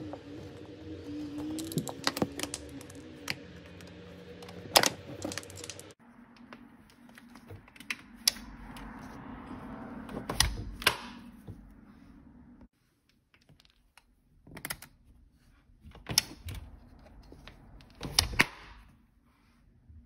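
Scattered sharp clicks and light knocks of hand work on a white plastic vinyl-window tilt latch: a screwdriver turning its screws into the sash, then fingers pressing the latch. The clicks come a few at a time with gaps between them, the loudest a little before the five-second mark.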